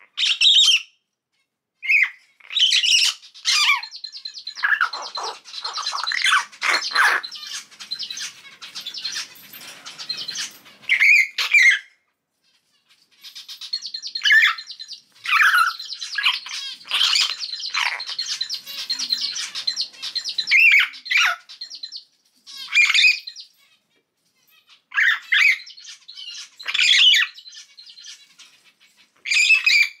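Young common hill myna, about three months old and not yet able to talk, calling loudly: sharp squawks mixed with long stretches of harsh, rasping chatter, broken by a few short pauses.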